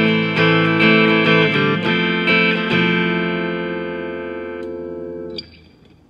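Fender American Standard electric guitar played through a Blackstar Studio 10 6L6 tube amp with reverb. A run of chords is picked in quick succession, then one chord is left to ring and fade for about three seconds before it is cut off near the end.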